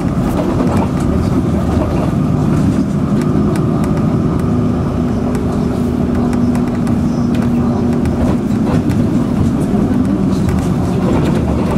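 Steady engine drone and road rumble heard from inside a moving city bus, with a low hum that holds an even pitch.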